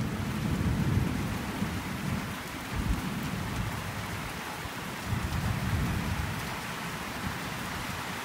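Steady rain hissing down, with low rolls of thunder rumbling through it: one at the start, a short one about three seconds in, and a longer one a little past the middle.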